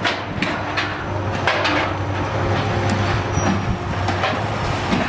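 A heavy machine's engine running steadily, with repeated knocks and clatter over it.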